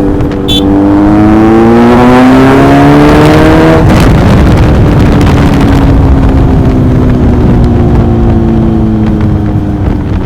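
Sport motorcycle engine accelerating, its note rising for about three seconds. About four seconds in it changes gear abruptly, then holds one long, slowly falling note.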